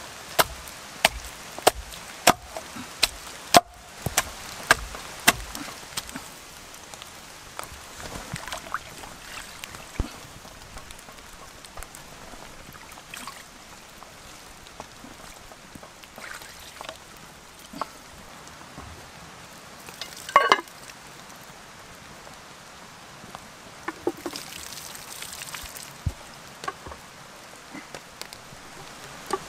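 A hatchet chopping through a pike on a wooden log: about ten sharp strokes, one every half second or so, over the first six seconds. Steady rain follows, with a few scattered softer knocks and handling sounds.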